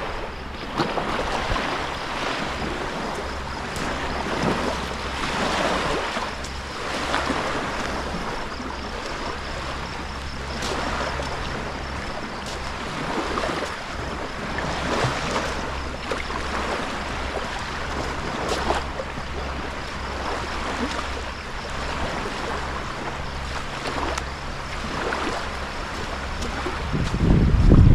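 Wind buffeting an action camera's microphone over rushing water, with a steady low hum underneath and a loud low gust blast near the end.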